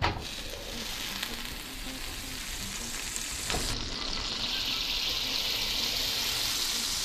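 A cube of butter sizzling as it melts in a hot nonstick frying pan, a steady frying hiss that slowly grows louder as the pan heats.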